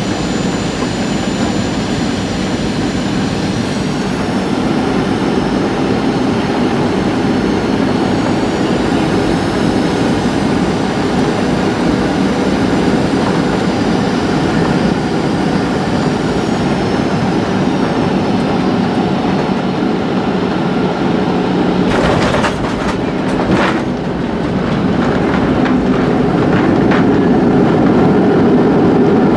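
Cabin noise of a Boeing 737-700 with CFM56 turbofans, heard from a window seat on final approach and landing: a steady engine and airflow roar, with the engines' high whine rising and then falling in pitch as thrust changes. A few sharp knocks come a little over twenty seconds in, then the roar grows louder as the jet rolls down the runway.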